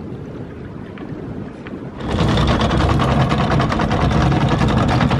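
A boat's motor running loudly over wind and water noise. It comes in suddenly about two seconds in.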